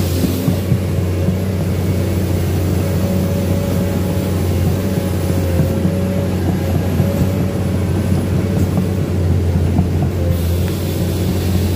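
Komatsu PC210 excavator's diesel engine running at a steady drone, heard from inside the cab as the machine travels through floodwater on a flooded road.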